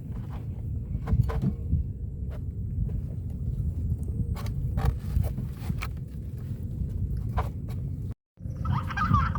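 A steady low rumble with scattered knocks. After a brief cut near the end, a flock of geese or ducks starts honking in a dense chorus.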